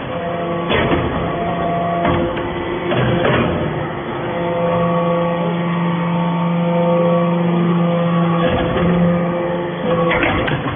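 Hydraulic aluminium-chip baler running: a steady machine hum with several pitch lines that strengthen and fade a few times, broken by short noisy bursts, about a second in, around two and three seconds, and again near the end.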